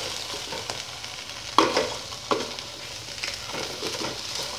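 Beef steaks sizzling and crackling as they fry in the inner pot of an electric rice cooker, the water cooked off. Two sharper knocks, about one and a half and two and a half seconds in, from the plastic rice paddle moving in the pot.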